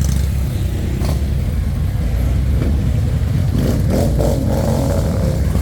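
Several motorcycle engines rumbling as the bikes ride past in a line, with one engine revving up from about three and a half seconds in.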